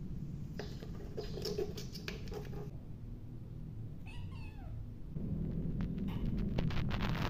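A kitten meowing once, about four seconds in: a short call that falls in pitch. Scattered clicks and rustling come before and after it.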